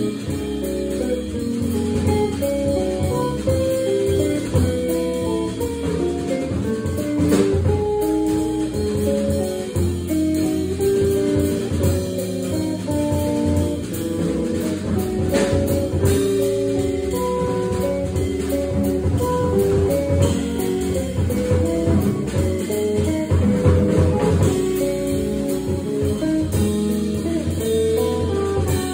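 Live jazz played by an organ trio: electric guitar picking single-note lines over organ and a drum kit, with a steady low bass line underneath.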